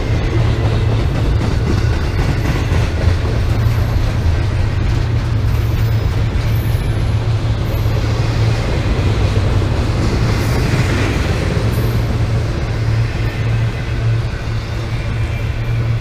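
Intermodal freight train passing close by: a steady, loud rumble of rolling stock on the rails that holds level throughout.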